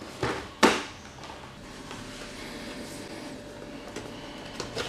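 Black cardboard MRE ration box being handled: two short knocks in the first second, the second louder, as the box is put down and handled, then quiet steady room noise with faint light rustling near the end.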